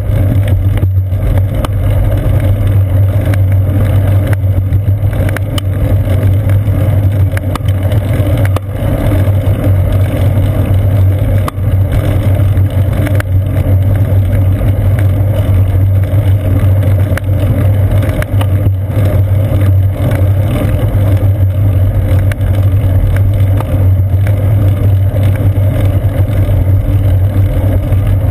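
Steady, loud low rumble of wind and road vibration picked up by a seat-post-mounted action camera on a bicycle rolling along a paved trail, with a few faint knocks from bumps.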